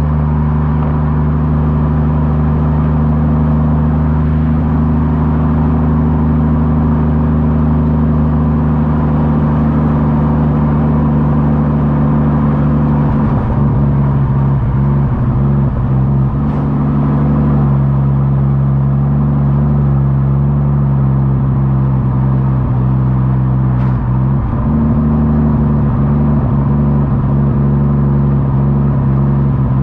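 Ford FG Falcon XR6 Turbo's turbocharged straight-six running through a 4-inch exhaust with the rear muffler deleted, holding a steady engine note that shifts slightly about halfway through and again later on.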